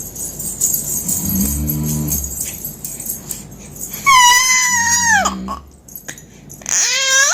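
Five-month-old baby making high-pitched squealing noises: a long squeal that falls in pitch about four seconds in, and another that rises near the end.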